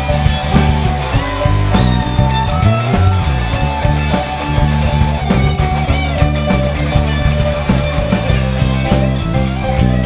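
Live rock band playing an instrumental passage: a Les Paul-style solid-body electric guitar plays a lead line with bent notes over bass guitar and a steady drumbeat.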